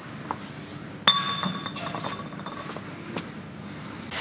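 An empty glass beer bottle set down on a concrete floor with a sharp clink, ringing clearly for a second or so as it dies away. A short loud burst of noise comes right at the end.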